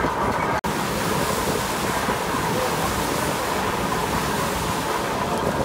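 Rotary veneer lathe turning a log as its knife peels off veneer: a steady mechanical whir and hiss with a constant pitch in it. The sound drops out for an instant about half a second in.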